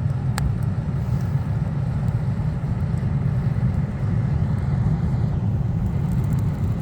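Ventilator fan forcing air into a homemade furnace's coal fire: a steady low rumble, with a single sharp click about half a second in.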